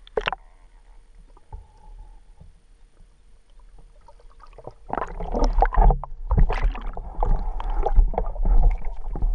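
Muffled underwater sound from a GoPro camera in its waterproof housing: a sharp knock at the start, then quiet water with a faint steady electronic whine, turning to loud churning, sloshing water noise from about five seconds in.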